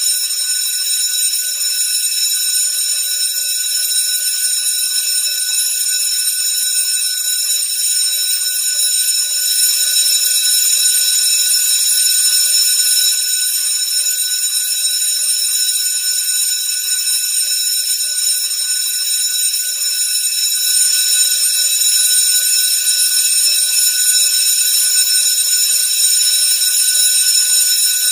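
School bell ringing continuously, a steady, high-pitched ring that never breaks off.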